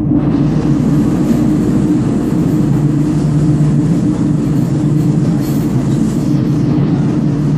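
Steady low drone and rumble of a moving vehicle, heard from inside its cabin.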